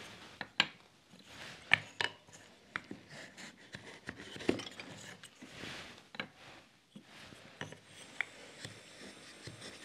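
Small wooden lattice bars being handled and fitted, giving sparse light clicks and knocks of wood on wood with soft rubbing between them.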